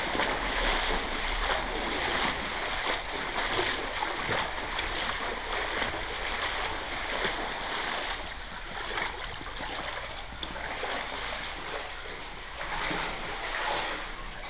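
Floodwater splashing and sloshing in a continuous noisy wash, a little quieter in the second half.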